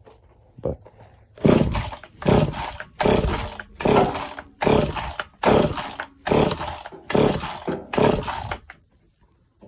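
Husqvarna 525L trimmer's small two-stroke engine being pull-started: about nine quick, evenly spaced pulls of the recoil starter cord, each cranking the engine, which does not catch and run.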